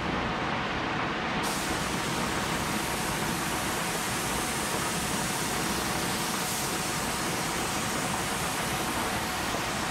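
Steady rushing air in an inflatable spray booth: the booth's blower running, with the hiss of a spray gun laying on clear coat, brighter from about a second and a half in.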